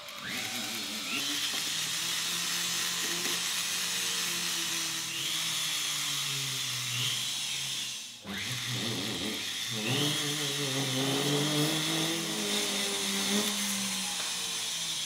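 Jeweller's flexible-shaft rotary tool spinning up and running a small abrasive bit on a white gold ring. Its whine drifts in pitch as the speed changes. It cuts out about eight seconds in and spins up again.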